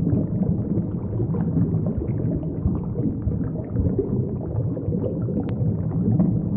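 Underwater bubbling and gurgling: a dense, continuous low rumble of bubbles, with a single sharp click about five and a half seconds in.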